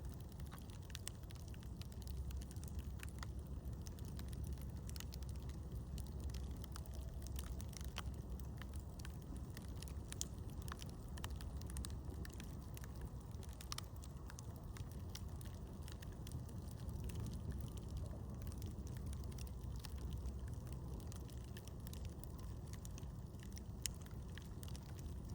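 Campfire burning: wood crackling with scattered sharp pops over a low steady rumble.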